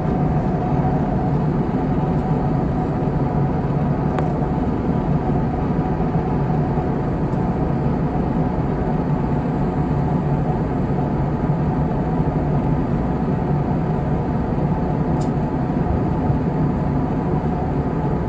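Steady jet airliner cabin noise in flight: an even drone of engines and rushing air with a low hum underneath.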